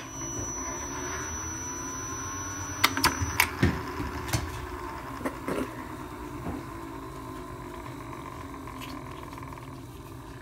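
iFetch automatic tennis-ball launcher's motor running with a steady hum. A few sharp knocks and clatters come about three to five seconds in.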